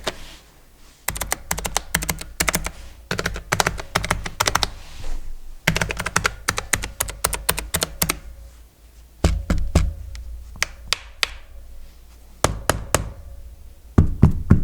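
AZIO Retro Classic keyboard being typed on, hollow-sounding: two quick runs of clicking keystrokes, then a few separate, heavier key strikes that land with deep thuds.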